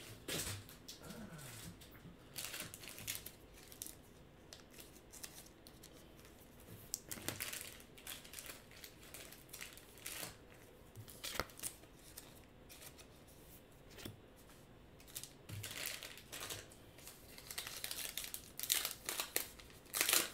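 Baseball cards being handled and set down: scattered short slides and taps. Near the end, a trading-card pack wrapper crinkles and tears as it is opened.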